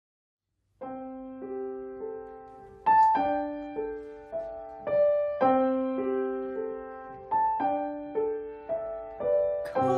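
Solo piano playing a simple melody intro. It starts about a second in, and each note is struck and then fades before the next.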